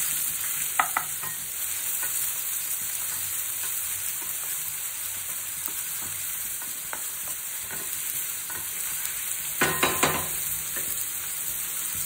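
Chopped onions sizzling in hot oil in a stainless steel pan with a steady hiss, stirred with a wooden spatula. The spatula knocks and scrapes against the pan a little under a second in and more loudly in a short cluster about ten seconds in.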